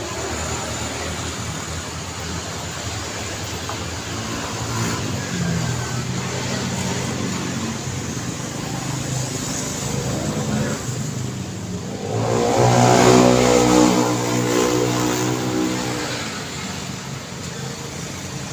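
Busy street traffic: a steady wash of passing engines and tyres, with one vehicle passing close and loud from about twelve seconds in, its engine note rising and then fading.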